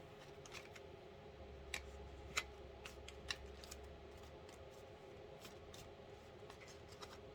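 Tarot cards being handled: faint, irregular clicks and light snaps of card stock, a dozen or so spread over the pause.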